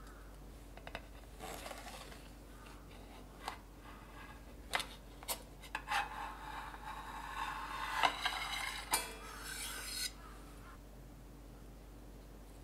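Square metal cake frame being worked loose and slid off a chilled no-bake cheesecake, with scattered light clicks and knocks of metal on a plastic tray and a longer rasping rub of metal and plastic film sliding past each other about halfway through.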